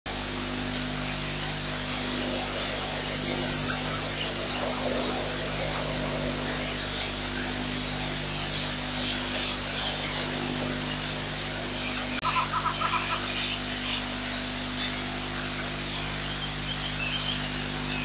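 A steady low hum with hiss throughout, with a click and a short run of pulsing chirps about twelve seconds in.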